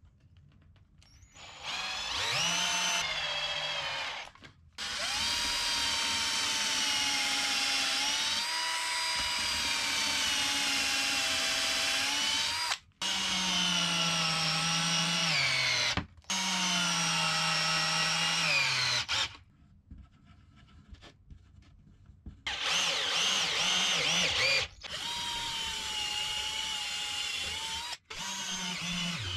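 Electric drill running in a series of runs of a few seconds each, with a pause of about three seconds midway. The motor whine sags in pitch as it is loaded.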